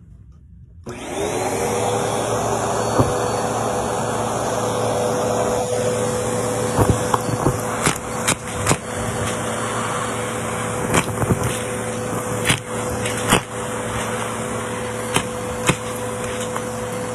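Bissell PowerForce Helix Turbo upright vacuum cleaner switched on about a second in, its motor spinning up and then running steadily. Scattered sharp clicks and knocks come over the motor from about six seconds in.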